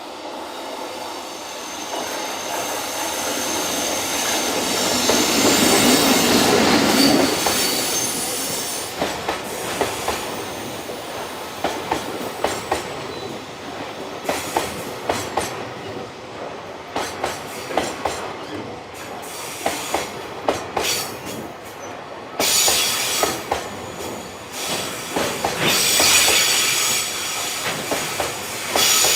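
JR Freight train hauled by an electric locomotive passing close by. The locomotive's approach builds to its loudest about six seconds in. Then the wagons' wheels clack steadily over the rail joints, and near the end the wheel flanges squeal loudly.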